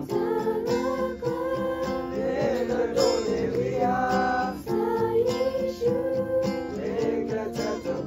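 A group of young people singing a song together, several voices at once, with a strummed acoustic guitar accompanying them.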